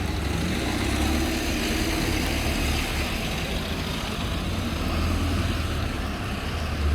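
Busy road traffic: a steady low rumble of vehicle engines with an even wash of road noise.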